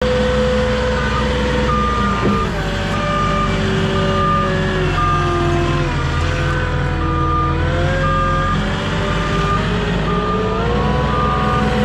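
Truck backing up: its reversing alarm beeps about once a second over the running engine, whose pitch rises and falls as it is worked.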